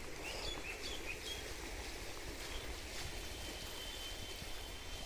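Outdoor ambience by a shallow flowing stream: a steady rush of water with a low rumble of wind on the microphone, and a few short bird chirps in the first second or so.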